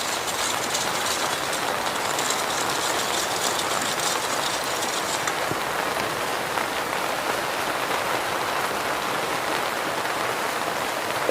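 Steady rain falling, an even hiss with a denser patter in the first five seconds or so.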